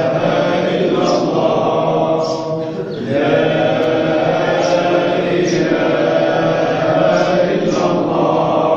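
Group dhikr chanting of a Sufi hadra: many voices chant together in a steady repeating rhythm, with a brief break about three seconds in.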